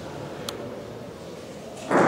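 Low murmur of spectators in a bocce hall, with one sharp click about a quarter of the way in; just before the end a loud burst of crowd applause breaks out.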